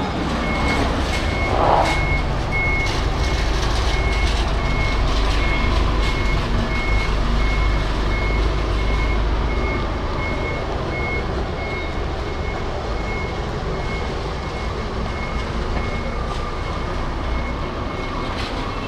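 A vehicle's reversing alarm beeping steadily: one high tone repeated at even spacing, over the deep running rumble of a truck engine.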